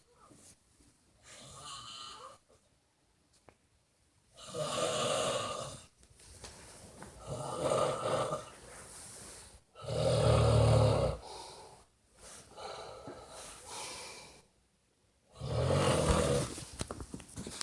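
A person snoring loudly, one snore every two to three seconds with fainter breaths between. The loudest and deepest snore comes about ten seconds in.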